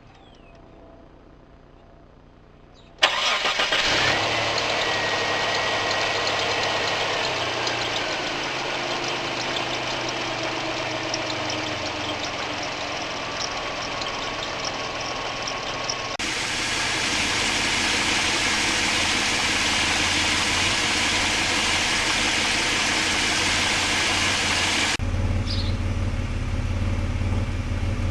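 Mitsubishi 3.0-litre 6G72 V6 starting about three seconds in and settling into idle. A thin squeal from the alternator glides slowly down in pitch over the next several seconds. The running sound turns hissier around a third of the way through the remaining time and gains a heavier low rumble near the end.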